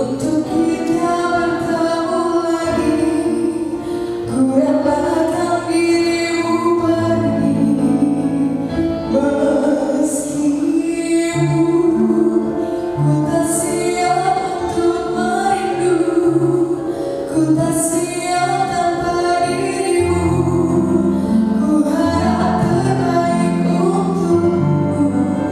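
A woman singing into a handheld microphone over instrumental accompaniment.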